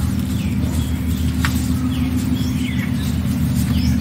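A steady low mechanical hum like a distant engine or motor runs throughout. Over it, small birds chirp in short calls several times, and a few sharp clicks come from red amaranth stems being cut on a boti blade.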